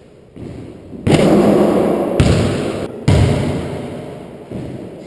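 Basketball thuds: two loud impacts about two seconds apart, each ringing on and dying away slowly in the small hard-walled court.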